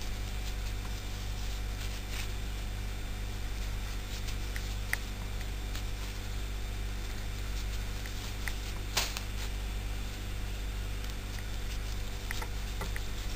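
Steady low electrical hum and hiss of the recording, with a few faint scattered clicks and soft rustles from hands working yarn with a metal crochet hook; the sharpest click comes about nine seconds in.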